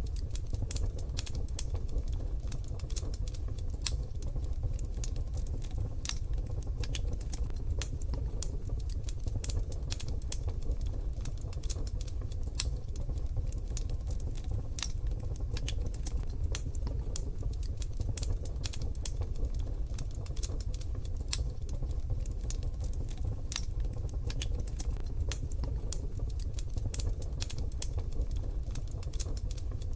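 Wood fire crackling in a wood-burning stove: a steady stream of irregular sharp pops and snaps over a low, even rumble.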